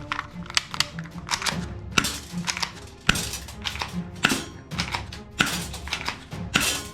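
Background music with a string of sharp, irregular clicks and knocks over it.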